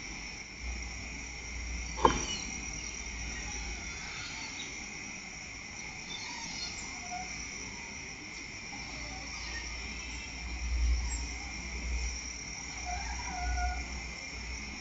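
Crickets and other night insects chirping steadily in two high-pitched bands. A single sharp click comes about two seconds in, and a low rumble comes and goes underneath.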